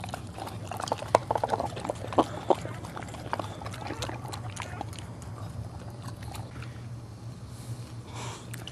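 Mother dog licking a newborn puppy and its birth sac: quick wet licking and slurping clicks, busiest in the first three seconds, over a steady low hum.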